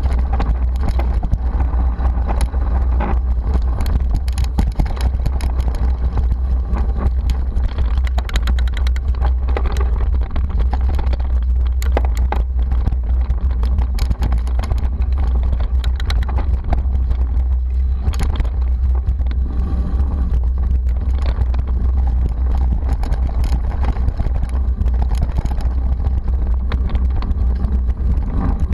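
Mountain bike ridden fast over a dirt forest trail, heard through a bike-mounted GoPro Hero2: a steady low rumble of wind and vibration, with frequent rattles and knocks as the bike and camera mount jolt over roots and rough ground.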